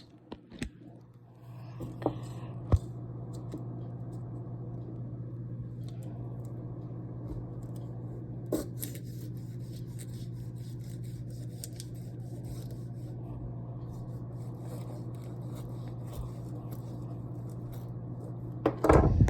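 A steady low electrical hum from a running appliance starts about a second and a half in and holds at an even level until near the end. A few sharp clicks come early and one more about halfway, then a louder burst of handling noise at the very end.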